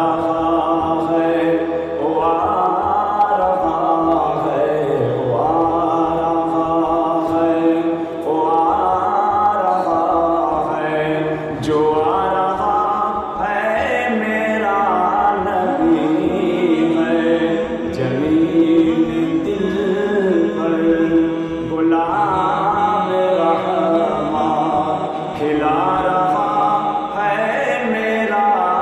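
An Urdu naat, an Islamic devotional song, sung in a chant-like melody. The vocal phrases rise and fall every couple of seconds over a steady held drone.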